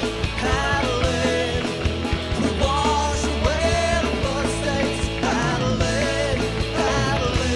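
Rock song with a singer's voice over a steady beat and sustained bass notes.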